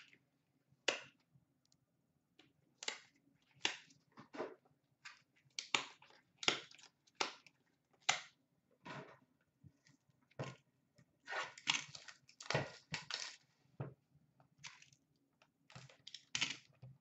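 Hockey card packs and their packaging being opened and handled by hand: a string of short, irregular crinkling, tearing and rustling sounds, busiest a little past the middle.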